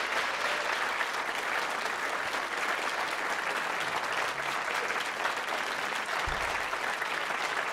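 Concert audience applauding, a dense steady clapping, with one short low thump about six seconds in.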